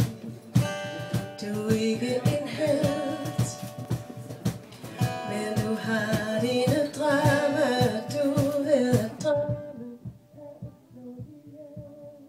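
Woman singing a pop song live, accompanied by acoustic guitar over a steady beat. About nine seconds in, the sound turns suddenly quieter and muffled, and the beat carries on faintly.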